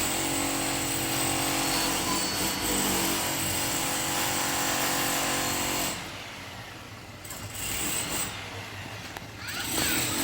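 A steady machine noise with a constant hum and a high whine. It drops away sharply about six seconds in and comes back near the end.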